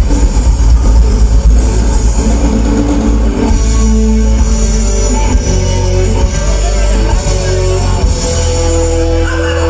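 Live rock band playing loud through a PA, with electric guitar, bass and drum kit and a heavy booming low end. The driving drumming thins out about three seconds in, leaving held guitar notes.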